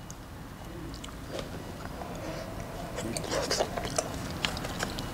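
Close-up mouth sounds of chewing a mouthful of baby octopus in chili sauce: soft wet smacks and small clicks that grow busier about halfway through.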